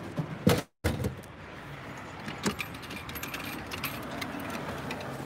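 Drinks vending machine dispensing a small hot PET bottle of green tea: a couple of clunks as the bottle drops into the delivery bin, then a sharp click and a run of light metallic clicking and rattling.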